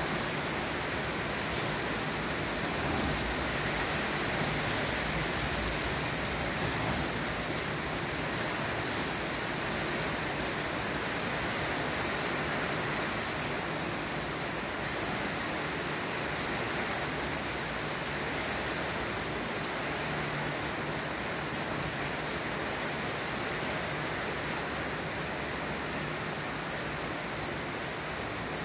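Steady rain falling outside a window, an even, unbroken hiss with no separate drops or gusts standing out.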